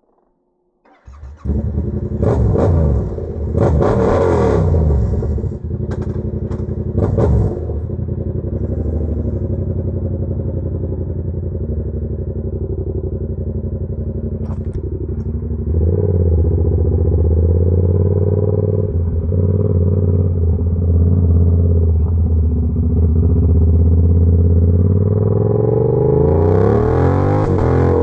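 Yamaha YZF-R7's parallel-twin engine, with an aftermarket SC-Project exhaust, starting up about a second in, then blipped sharply three times before settling to a steady run. From about halfway it gets louder, with the revs rising and falling, and it climbs in pitch near the end.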